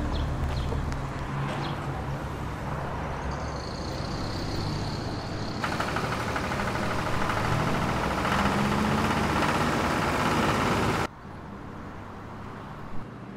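Steady low engine rumble, then about halfway through a louder, hissing noise of heavy lumber-yard machinery takes over. It cuts off abruptly about two seconds before the end, leaving a quieter outdoor background with one short knock near the end.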